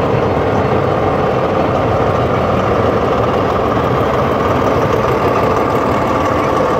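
Steady, unbroken drone of a diesel train engine idling.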